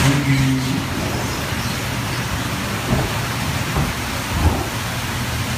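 Steady rushing of water along a log-flume channel, with a few faint knocks.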